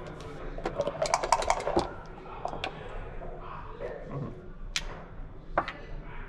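Backgammon dice shaken in a dice cup and thrown onto the board: a quick run of rattling clicks about a second in. This is followed by a few single sharp clacks of checkers being set down on the board.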